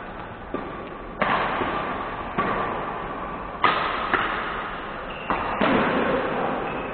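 Badminton rally: rackets striking a shuttlecock in sharp cracks, about seven hits at irregular intervals of half a second to just over a second, each ringing on in the hall's echo.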